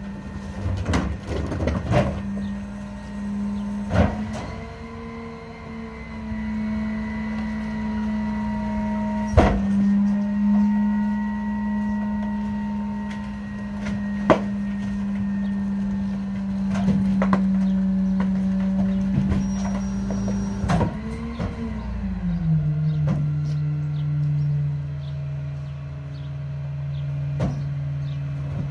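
Mack McNeilus rear-loader garbage truck's engine running with a steady drone at raised speed. About 21 seconds in its pitch slides down to a lower steady drone. Several sharp knocks and bangs come from trash and a mattress being heaved into the rear hopper.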